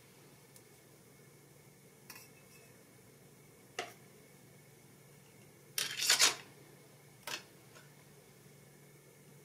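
Seed beads and thin wire clicking and clinking against each other as the wire tail is wrapped back between the rows of beads: a few scattered faint clicks, with a short cluster of louder clinks a little past the middle.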